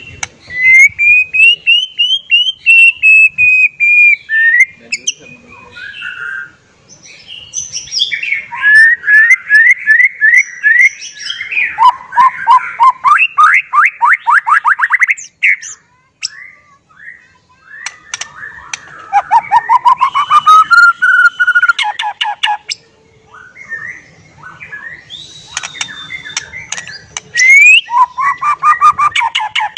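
White-rumped shama singing loudly: a run of varied whistled phrases with rising sweeps, quick series of repeated notes and fast trills, broken by short pauses between phrases.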